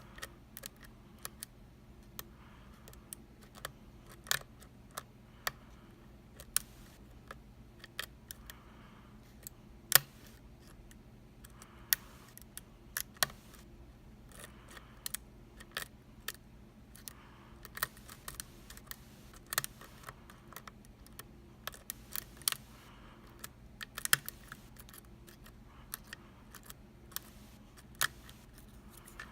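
Peterson #1 hook pick working the pins of a pin-tumbler lock: irregular small clicks and light scraping as pins are lifted and set under tension, until the lock is picked open.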